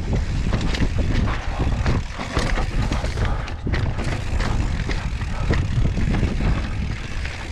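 Mountain bike being ridden over rough dirt trail: wind rumbling on the action camera's microphone, with many small knocks and rattles from the tyres and bike over the ground.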